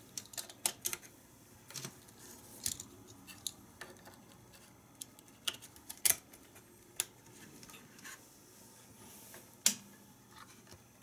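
Irregular sharp clicks and taps from handling the plastic instrument cluster, with the loudest clicks about six seconds in and near ten seconds.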